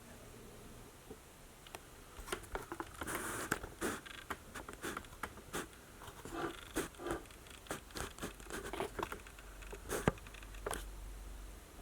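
Irregular handling noises: a run of light taps, clicks and rustles, starting about two seconds in and stopping near the end.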